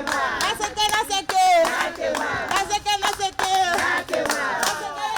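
A group of people singing together while clapping their hands in rhythm, the voices sliding in pitch.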